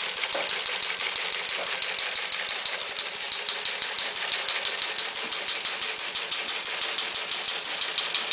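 Teletype Model 28 receive-only page printer running, clattering steadily as it prints incoming text at 60 words per minute: a fast, even stream of mechanical clicks, about six a second.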